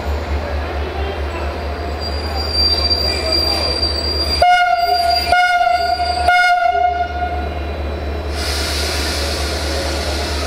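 Class 64 "GM" diesel-electric locomotive rumbling low and steadily as it draws to a stop, with a thin high squeal for a couple of seconds. About halfway through it sounds its horn in three short blasts. A hiss of air follows near the end.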